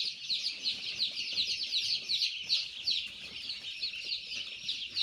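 A crowd of young Kadaknath chicks and turkey poults peeping constantly, with many short, high, falling peeps overlapping.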